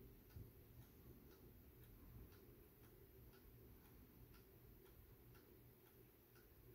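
Clockwork timer of a restored 1950s Duncan Miller Model 50 parking meter ticking faintly and steadily, about two ticks a second with every other tick louder, as the meter runs down its paid time.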